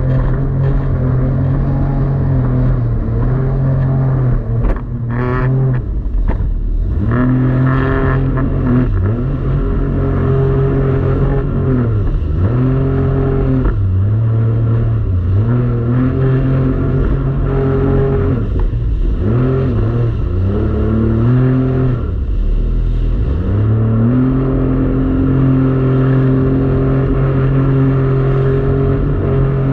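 Jet ski engine running at speed, its pitch dropping and climbing back several times as the throttle is eased off and opened up again, then holding steady near the end.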